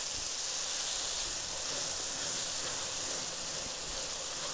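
Okra and sliced tomatoes sizzling in oil in an aluminium pot while being stirred with a wooden spatula: a steady hiss.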